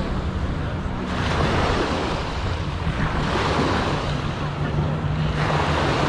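Ocean surf washing in, swelling every couple of seconds, with wind on the microphone and a faint steady low hum underneath.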